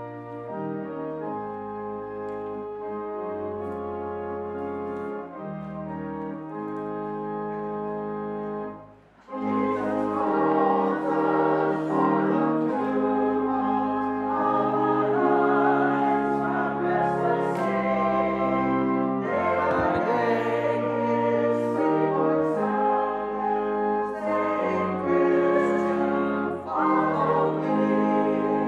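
A hymn's instrumental introduction of held chords, then, about nine seconds in after a short break, the congregation joins in singing the hymn with the accompaniment.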